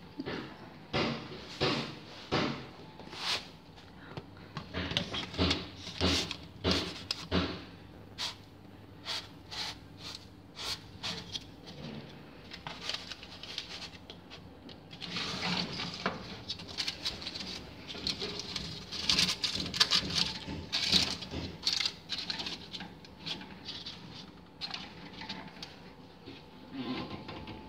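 Irregular clatter of metal baking trays and oven racks: many short knocks, clicks and scrapes as trays are slid in and set down, busiest in the second half.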